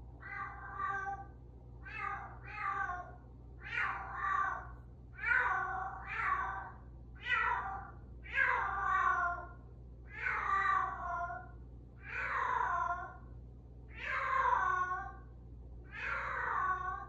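A Bengal cat meowing over and over, a dozen or so loud, drawn-out meows about one every second or so, each falling in pitch at its end.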